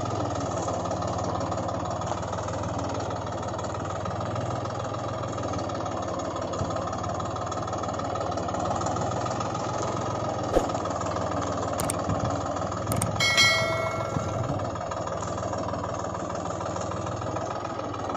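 A tractor engine running steadily at an even speed. Sharp clicks come about ten and twelve seconds in, and a short ringing ding just after thirteen seconds.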